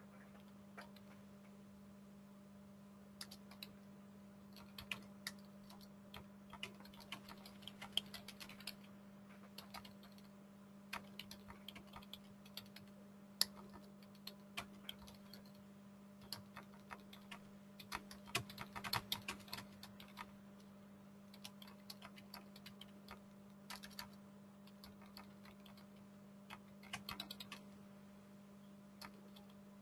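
Faint, irregular clicking of typing on a computer keyboard, busiest about two-thirds of the way through, over a steady low hum.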